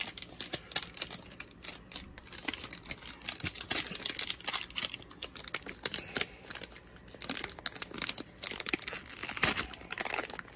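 Wrapper of a Select football trading-card pack crinkling and crackling in the hands as the pack is handled and torn open.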